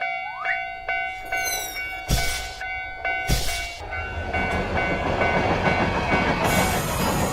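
Japanese railroad crossing bell ringing in a steady "kan-kan" about twice a second, with two short bursts of noise. Then a train passes through the crossing, its rumble building from about four seconds in and covering the bell.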